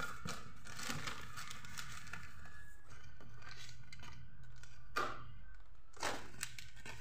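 Paper or plastic packaging rustling and crinkling as it is handled, in irregular bursts, with two sharper crackles about five and six seconds in.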